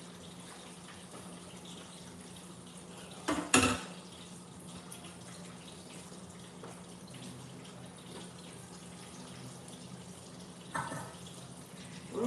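Quiet kitchen background with a steady low hum, broken by one sharp clatter, like a dish or utensil being set down, about three and a half seconds in, and a softer knock near the end.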